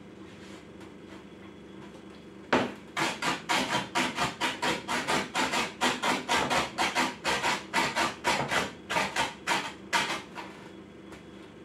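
Small hatchet chopping outer cabbage leaves on a wooden cutting board: a quick, even run of knocks, about three or four a second, starting about two and a half seconds in and stopping shortly before the end.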